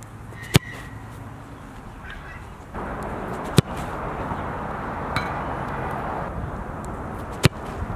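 A soccer ball kicked hard on crossing strikes: three sharp, brief impacts about three seconds apart, over steady outdoor background noise.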